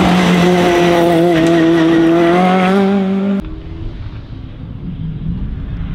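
Mk1 Ford Escort RSR race car engine running loud at high revs, its pitch held nearly steady as the car passes close by. About three and a half seconds in it cuts off abruptly to a quieter race car engine further away.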